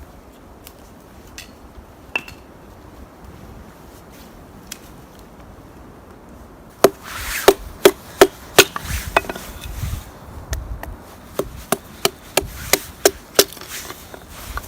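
Wood being chopped or split with a blade: faint scattered ticks, then from about seven seconds in a run of sharp chopping blows, roughly two a second, each with a short woody knock.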